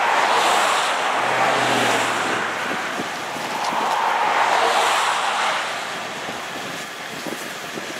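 Two road vehicles passing by at speed, one after the other, each a swelling and fading rush of tyre and engine noise. The first passes in the opening couple of seconds and the second about four to five seconds in, followed by a steady wind-like hiss.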